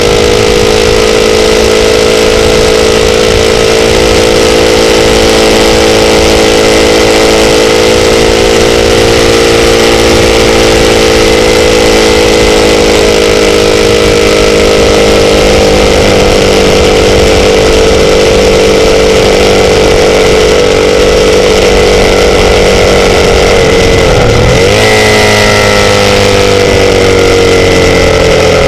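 Motorcycle engine running loud and steady at cruising revs. About 24 seconds in, the revs drop briefly and climb again, then slowly ease off near the end.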